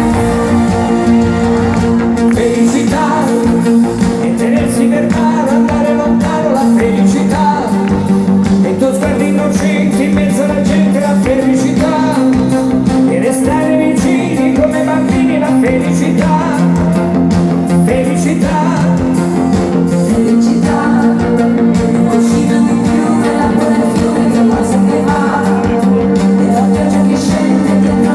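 A live pop band playing with a voice singing over it, the band holding chords that change every few seconds.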